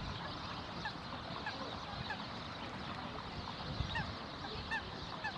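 Birds screeching in short, repeated calls that come faster toward the end, over a steady rush and low rumble of strong wind.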